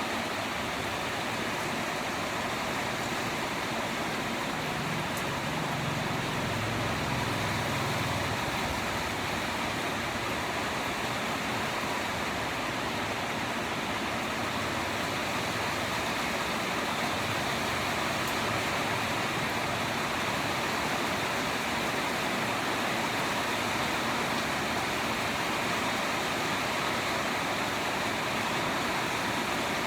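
Steady rain falling, an even hiss that never lets up. A low rumble swells and fades about five to eight seconds in.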